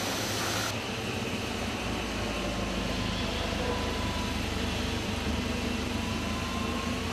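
Factory machinery noise from a paper-tube production line. After a cut at under a second in, the engine of an LPG-fuelled forklift runs steadily as it drives through the hall.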